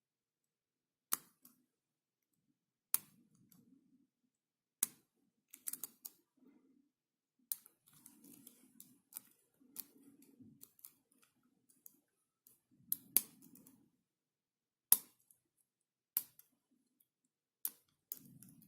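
Sharp metallic clicks every second or two as a pick and tension wrench work the pins of a six-pin pin-tumbler lock core with a Schlage keyway, each click a pin setting or slipping under tension, with faint scraping and handling between them. The picking ends with the core in a deep false set.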